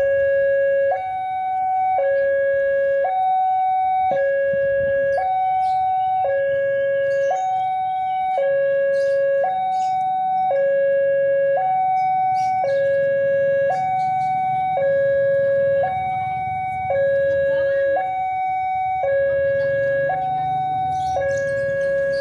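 Railway level-crossing warning alarm sounding: an electronic two-tone signal alternating between a low and a high tone about once a second, warning that a train is approaching.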